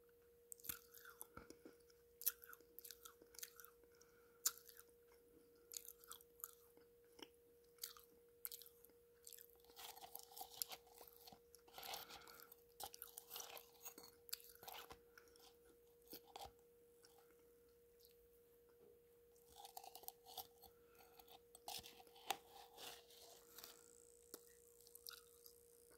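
Close-miked mouth sounds of a person chewing a thick paste: quiet wet smacks and crunchy clicks that come in clusters, pause briefly past the middle, then resume. A faint steady hum runs underneath.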